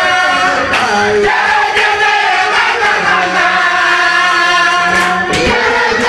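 A group of voices singing a devotional chant together, with a lead voice on a microphone and the group answering in held notes.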